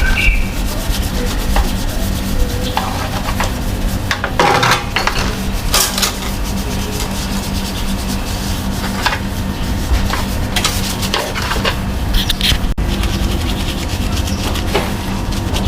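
Irregular rubbing and scraping strokes from hand cleaning work on an air conditioner's outdoor unit, over a steady low hum.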